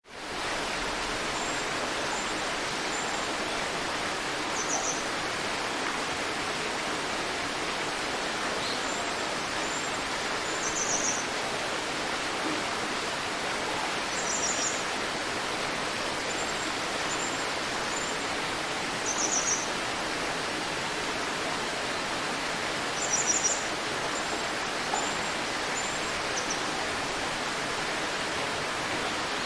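River water flowing steadily, with a songbird giving short high chirps and brief trills every few seconds.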